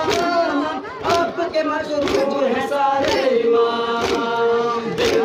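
A crowd of men chanting a noha, a Muharram lament, in unison, led by a voice on a microphone. Sharp, even chest-beats (matam) strike together about once a second, and near the end one note is held.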